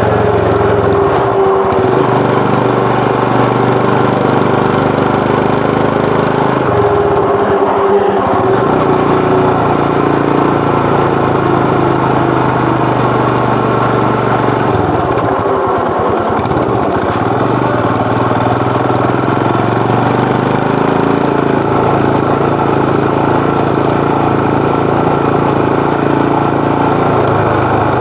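Royal Enfield Himalayan BS6's 411 cc air-cooled single-cylinder engine and exhaust running steadily on the move. The low engine note drops away briefly a few times: near the start, about eight seconds in, and around fifteen to seventeen seconds in.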